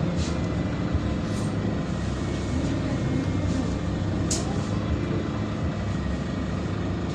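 Inside a LiAZ-5292.67 city bus running on compressed natural gas: steady engine and road noise. A brief sharp hiss cuts through about four seconds in.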